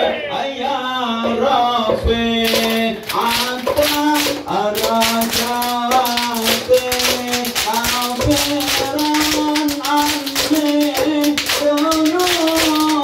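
Group of men singing Ishari sholawat together over a held tone, with a rhythmic beat of hand clapping and terbang frame drums that sets in about two and a half seconds in.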